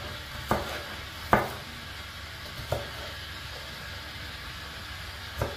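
Kitchen clatter: four short knocks of utensils or dishes over a steady low background noise, the second knock the loudest.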